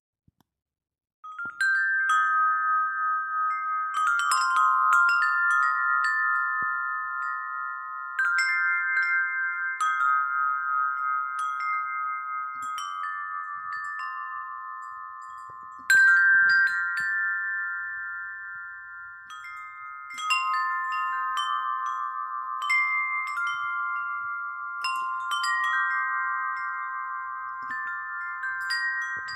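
Wind chimes ringing: irregular strikes set off long, overlapping metallic tones that die away slowly, starting about a second in.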